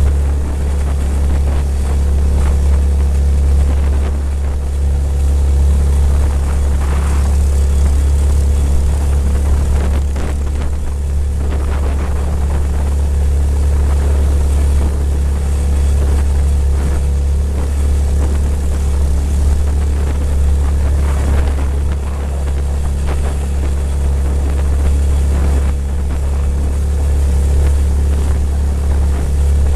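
Mokai motorized kayak's small gasoline engine and jet drive running at a steady throttle under way, a constant low drone that holds the same pitch throughout.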